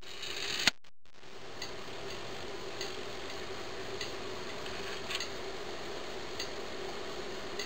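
Drive mechanism of an opened CD clock radio running: a small motor and gear train whirring steadily, with a faint light tick about once a second. A single click just under a second in.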